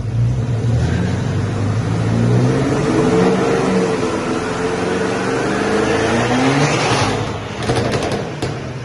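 BMW X6 M's 4.4-litre twin-turbo V8, tuned for pops and bangs, revving with the pitch climbing slowly for about seven seconds. The throttle then closes and the exhaust gives a quick string of crackles and pops on the overrun near the end, the sign of the pops-and-bangs remap.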